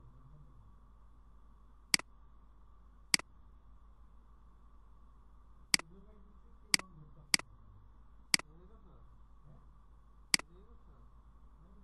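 Computer mouse button clicking seven times at uneven intervals, each a single sharp click.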